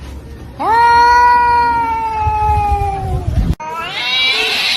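A cat's long, drawn-out yowling meow, held for about three seconds and sinking slightly in pitch. It breaks off abruptly, followed by a second, higher call that rises.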